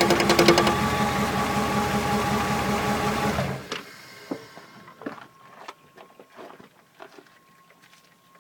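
1999 Dodge Dakota 5.2 L V8 running with a rapid, even knock, which the owner takes for a transmission noise that comes only in neutral and drive. The knock stops about half a second in. The engine runs on steadily, then falls silent about three and a half seconds in, leaving a few faint clicks.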